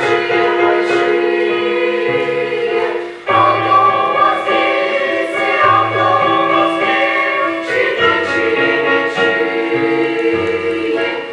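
A children's choir singing in parts, holding long notes over low sustained accompanying notes, with a short break in the phrase about three seconds in.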